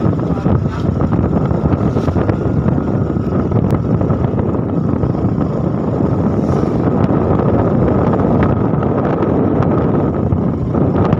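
Steady wind rushing over the phone's microphone while riding a two-wheeler, with the engine running underneath.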